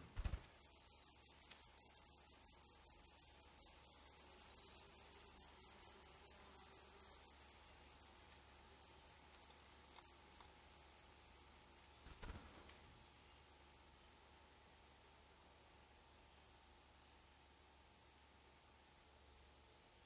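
Black redstart nestlings begging: a fast, high-pitched stream of thin calls starts suddenly, runs densely for about eight seconds, then slows to separate calls and fades out near the end. It is the sign of a parent arriving at the nest with food. There is a soft knock at the start and another about twelve seconds in.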